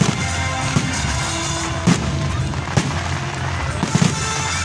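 Aerial fireworks bursting overhead: about five sharp bangs roughly a second apart, over loud music that plays throughout.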